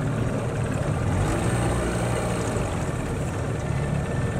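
A small boat's outboard motor running steadily at low speed, an even low hum.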